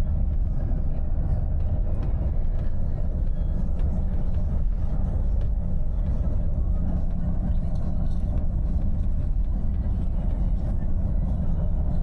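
Steady low rumble of a touring coach's engine and road noise, heard inside the passenger cabin while the coach is driving.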